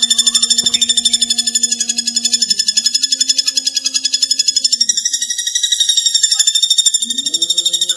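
Pelatuk bawang woodpecker giving a long, fast, high-pitched rattling trill of about ten notes a second, with no break. A steady low tone runs underneath and drops out for a couple of seconds a little after halfway.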